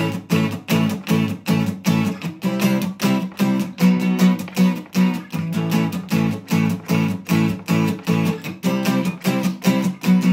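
Acoustic guitar strummed hard in a fast, even rhythm of about four strums a second, an acoustic take on a bouncy 'donk' dance beat.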